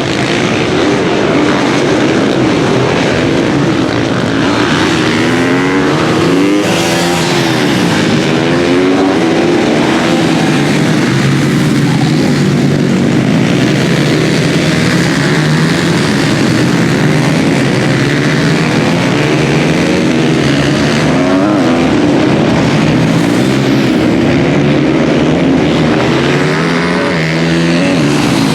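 Several supermoto race motorcycles' single-cylinder engines revving hard around the track, their notes overlapping and rising and falling in pitch through the gear changes as the bikes race past.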